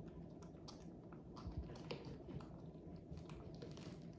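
Faint, irregular small clicks and crackles of ripe jackfruit pods and fibres being pulled apart by hand and eaten.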